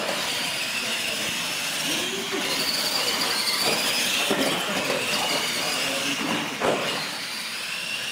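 Electric R/C monster trucks racing, their motors and gears giving a steady high whine over the rumble of tyres on a concrete floor. A sharp knock about six and a half seconds in.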